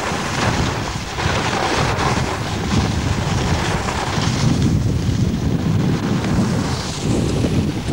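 Wind buffeting the microphone of a camera carried by a skier running down a piste: a steady rumbling rush of air.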